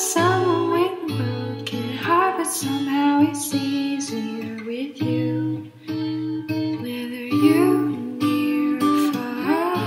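Background music: a gentle song led by acoustic guitar, with a singing voice gliding between notes in places.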